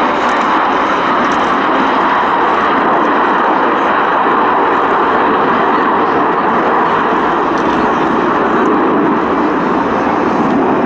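Jet engines of a British Airways Airbus A380 and the Red Arrows' Hawk jets flying past together in formation: a loud, steady rush of jet noise.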